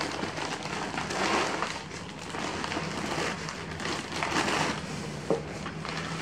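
Clear plastic wrap and a nylon bag rustling and crinkling in several bursts as a plastic-wrapped tripod is pulled out of its carry bag, with a sharp click about five seconds in.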